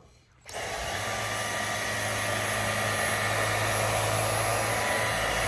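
Dyson V15 Detect cordless stick vacuum switching on about half a second in and running steadily, a low hum under a thin high whine, with its mini motorised brush head on sofa upholstery.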